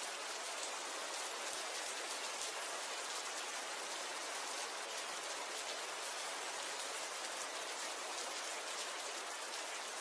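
Steady rain falling, a dense even hiss of many small drops.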